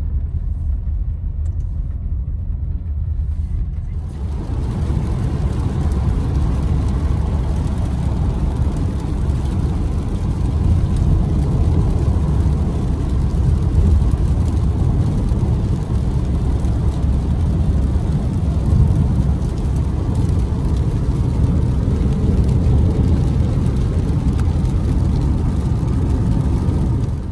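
Road noise inside a moving car's cabin on a wet road: a steady low rumble, joined about four seconds in by a louder, even hiss of tyres on wet tarmac and rain.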